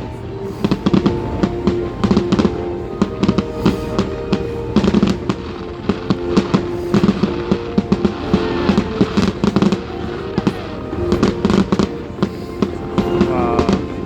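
Fireworks display: rapid, irregular bangs and crackles going off one after another, with music playing underneath.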